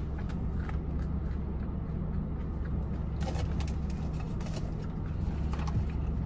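Steady low hum of a car's engine idling, with soft chewing and small clicks and rustles as a mouthful of egg waffle is eaten and the food is handled, busiest a little after halfway.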